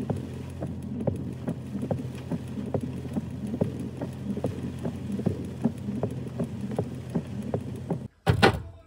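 Steady low hum of a running car engine heard from inside the vehicle, with light irregular tapping a few times a second. About eight seconds in the hum cuts off and a brief loud noise follows.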